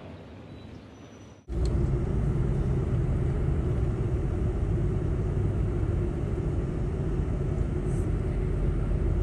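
A steady, loud low rumble of a running engine, cutting in abruptly about a second and a half in after a short quiet stretch.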